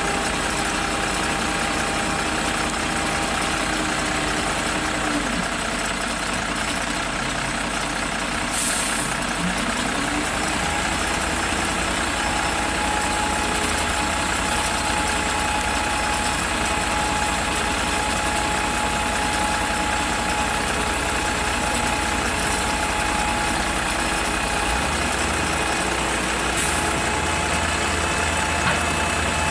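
Heavy truck engine running steadily while the trailer's conveyor unloads sand, its pitch dropping about five seconds in and climbing back a few seconds later. A short hiss sounds twice.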